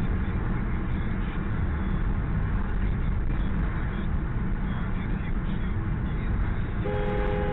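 Steady low rumble of a car driving, heard from inside the cabin through a dashcam microphone. Near the end a car horn starts sounding and holds on.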